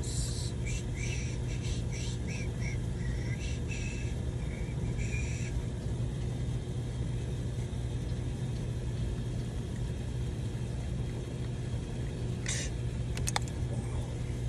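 Water pressure pump running with a steady low hum as it builds system pressure toward its 60 psi cut-off. There are faint high chirps or ticks in the first few seconds and a couple of sharp clicks near the end.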